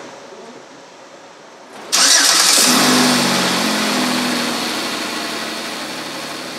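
2008 Chevy Equinox's V6 engine starting up about two seconds in, then settling toward idle and getting gradually quieter.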